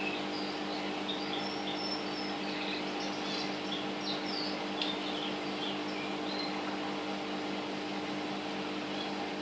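Pet parrots giving short, high chirps, scattered through the first half and sparse later, over a steady mechanical hum.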